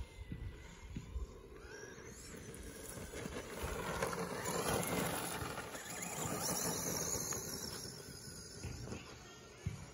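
ECX Amp radio-controlled electric truck driving across grass, its high motor whine and tyre noise swelling as it passes close about four seconds in, then fading as it runs off across the lawn.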